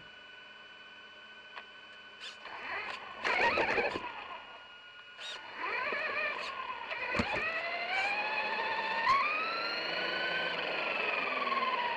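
Electric RC truck driving: a brushless motor whine climbs in pitch as it speeds up from about halfway through, then falls away near the end. Earlier there are a few sharp clicks and a short burst of rough, noisy sound.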